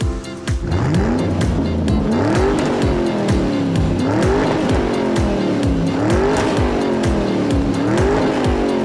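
Upbeat background music with a steady beat, overlaid with an engine-like whine that rises and falls about every two seconds, like a race car revving.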